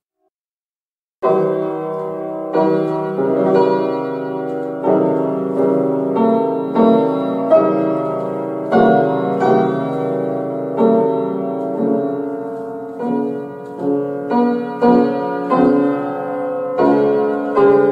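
Fortepiano tuned in an unequal historical temperament, playing a slow chordal passage in F-sharp minor, beginning about a second in. In this tuning every interval of F-sharp minor is narrow, making it the most unstable key.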